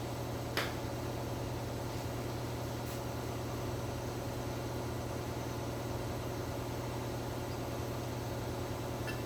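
Steady machine hum, with one sharp click about half a second in.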